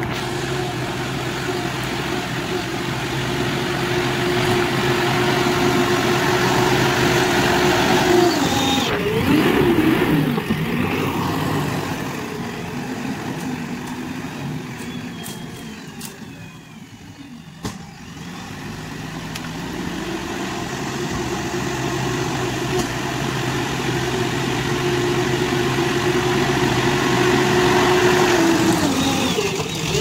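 JCB backhoe loader's diesel engine working under load as the front bucket pushes earth. Its note holds steady, swings in pitch about nine seconds in and again near the end, and fades around the middle as the machine backs away before building again.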